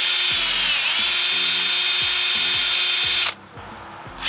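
Power drill with its smallest bit running at high speed, boring a tiny hole in a coolant expansion tank cap. Its high-pitched whine sags in pitch about a second in as the bit bites, stops a little after three seconds, and starts again near the end.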